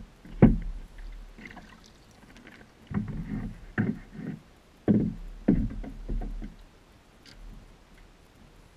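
Irregular knocks and thumps on a plastic fishing kayak as a small fish is brought aboard and handled; the loudest knock comes about half a second in, then a cluster follows a few seconds later.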